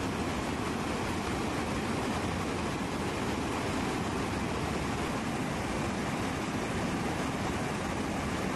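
Steady in-flight aircraft noise: an even, unbroken rushing roar of engines and airflow, weighted to the low end, with no change in pitch or level.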